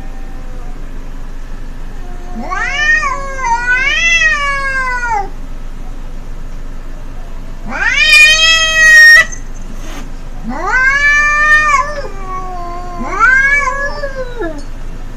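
Domestic cats caterwauling: four long, drawn-out, wavering yowls, the loudest and highest-pitched in the middle, which breaks off abruptly. These are territorial threat yowls aimed at an intruding feral cat.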